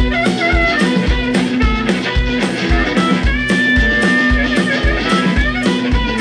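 Live electric blues: an amplified harmonica wails over electric guitar and a drum kit keeping a steady beat, holding one long note in the middle.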